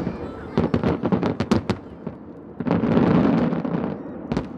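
Aerial firework shells bursting: a rapid run of sharp bangs for the first two seconds, a longer rumbling burst about halfway through, and two more bangs near the end.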